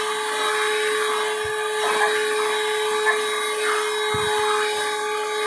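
Vacuum cleaner running steadily, its motor giving a constant whine over the rush of air, with a couple of faint low bumps.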